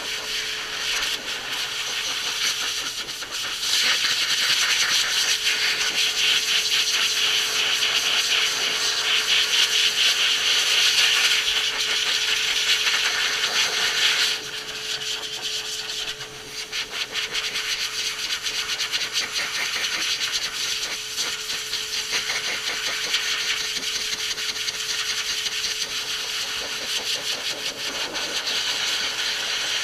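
Forced-air pet dryer running steadily with a constant motor whine, its hose blowing air into a Bedlington terrier's damp coat. It grows louder about four seconds in and eases off again around fourteen seconds.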